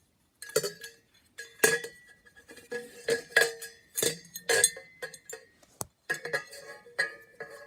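Ceiling fan's metal canopy being handled and fitted, a run of clinks and knocks about every half second to second, each leaving a short ringing tone.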